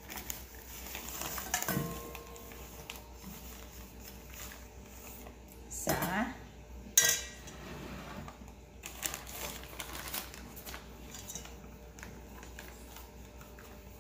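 Clinks and knocks of kitchenware against stainless steel mixing bowls as flour is measured out with a measuring cup. A sharp clink about halfway through is the loudest.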